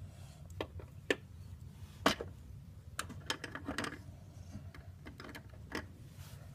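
Small plastic Playmobil figures and toy furniture clicking and tapping as they are handled and set down. The knocks are light and scattered, with the loudest about two seconds in and a quick run of them a little before four seconds.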